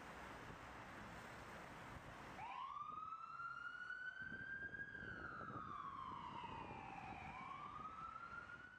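A steady hiss, then about two and a half seconds in an ambulance siren switches on, wailing slowly up and down in pitch.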